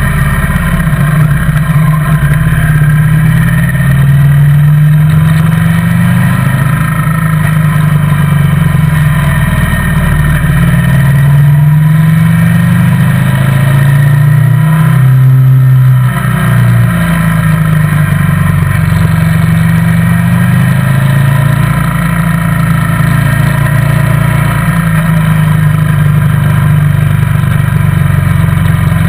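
Motorcycle engine running under way, loud and close. Its pitch rises and falls in steps several times as the throttle is opened and closed, with a brief dip about halfway through.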